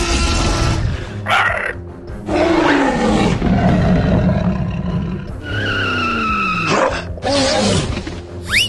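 Dinosaur roar sound effects for a T. rex, several in a row, each sliding down in pitch, over background music.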